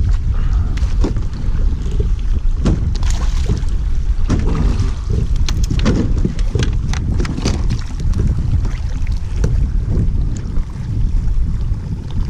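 Wind buffeting the microphone with a steady low rumble, with scattered knocks and clicks from handling on the kayak.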